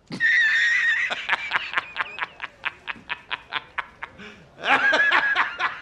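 A man laughing hard. It opens with a high-pitched shriek of laughter, breaks into rapid cackling at about five pulses a second, and swells into another high burst of laughter near the end.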